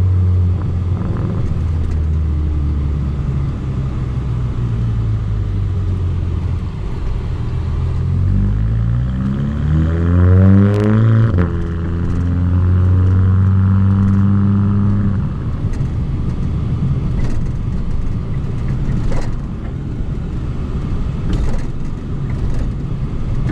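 The exhaust of a Volkswagen MK6 GTI's turbocharged 2.0-litre four-cylinder, picked up by a microphone mounted outside the moving car. It runs steadily, then rises in pitch under acceleration from about eight seconds in. The pitch drops sharply at an upshift a few seconds later, and after a few more seconds the engine eases off, leaving mostly road and wind rumble with a few sharp ticks.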